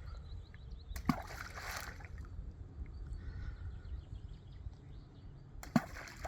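Two balls of groundbait splashing into a lake, one about a second in and one near the end, each a sharp smack followed by a short wash of spray.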